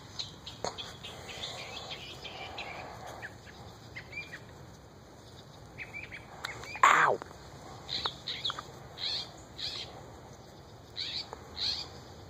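Puppies squeaking and yipping while they play, a string of short high squeaks, several falling in pitch, with one louder yelp about seven seconds in.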